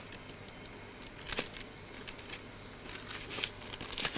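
Faint rustling and light taps of a cardboard record sleeve and its paper insert being handled, a slightly louder rustle about a second in, over a steady background hiss.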